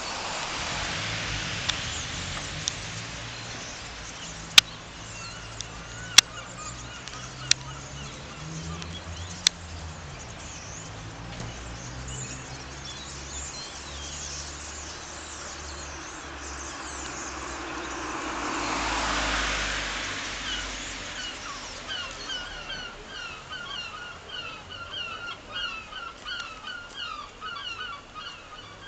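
A flock of birds calling in short, quickly repeated notes, setting in about three-quarters of the way through and carrying on to the end. Before that, a few sharp clicks and a rush of noise that swells and fades.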